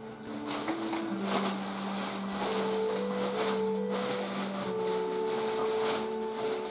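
Slow background music: a melody of long held notes over a sustained low note, with soft hissing swells.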